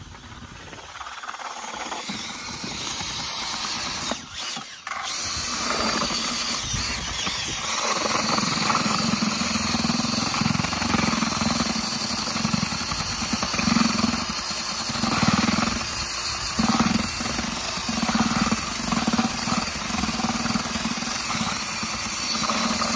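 Handheld drill with a paddle mixer running in a plastic bucket, stirring wet concrete. The motor hum settles in a few seconds in and wavers in speed as the paddle churns the mix.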